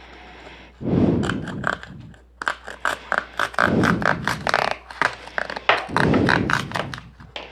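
Cardboard being cut by hand: a fast run of crisp snips and scrapes, several a second, broken by a few duller handling sounds.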